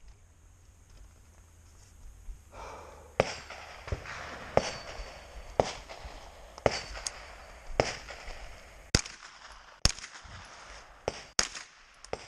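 Freedom Ordnance FX-9 9mm carbine fired in a string of single shots, roughly one a second, beginning about three seconds in.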